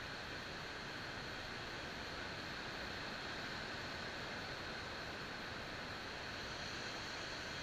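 Faint steady hiss of outdoor background noise, with no motor sound: the quadcopter is sitting on the ground and its motors are not running.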